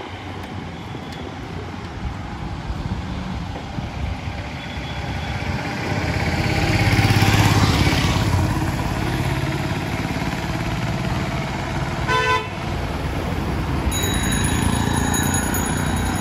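Road traffic going by, with one vehicle passing close about six to eight seconds in, the loudest part. A short horn toot sounds about twelve seconds in, and a thin high tone comes in near the end.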